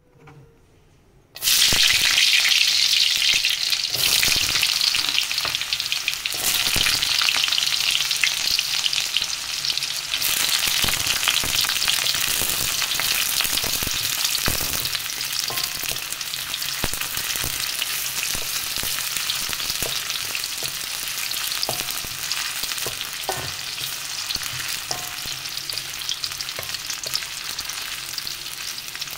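Garlic and sliced red onions sizzling in hot oil in a wok. The sizzle starts suddenly about a second and a half in, as they go into the oil. A wooden spatula scrapes and knocks against the wok as they are stirred, and the sizzle eases a little toward the end.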